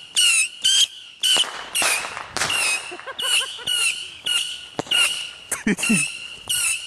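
New Year firework going off in a rapid series of sharp pops, about two a second, each with a shrill whistling tone.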